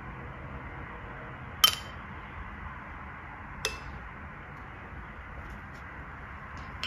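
Two clinks of a utensil against a glass, a sharp ringing one and then a softer one about two seconds later, over a steady faint background hiss.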